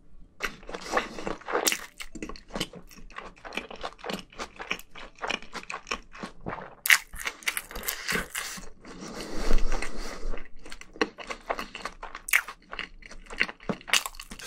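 A person chewing and crunching crispy fried food close to the microphones: dense, irregular crunching with no pause, loudest about nine to ten seconds in.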